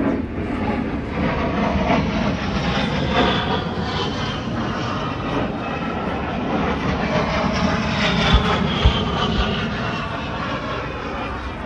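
Aircraft engine droning steadily, with a whining tone that slowly falls in pitch in the last few seconds. Two short low thumps come about eight seconds in.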